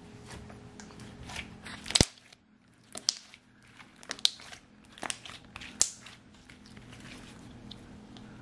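Slime being squeezed and stretched by hand, giving off irregular sharp crackling pops. The loudest pop comes about two seconds in, and several more follow over the next four seconds.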